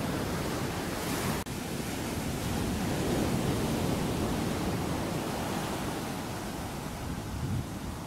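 Ocean surf washing onto a beach: a steady rush of noise that swells and eases, with a sudden brief cut-out about a second and a half in.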